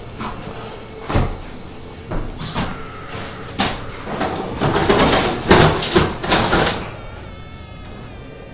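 Footsteps, knocks and bumps on wooden stairs and floorboards, with a louder clattering stretch in the middle.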